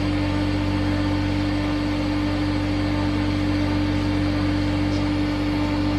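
Lampworking torch flame burning with a steady hiss, over a steady mechanical hum.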